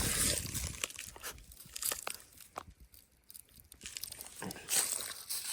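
Dry leaves and twigs crunching and crackling as they are stepped through, in irregular scattered crackles that thin out in the middle.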